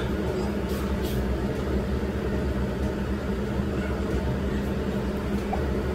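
Air conditioner running with a steady low hum, with two faint clicks just under a second in.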